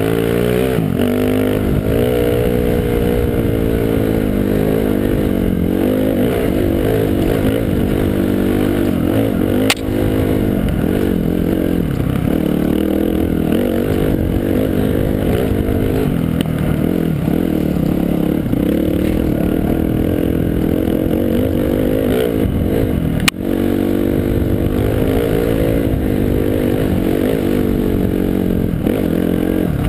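Dirt bike engine revving up and down through the gears over a rough trail, heard from a helmet-mounted camera. Two sharp knocks cut through it, about a third of the way in and again about three-quarters through.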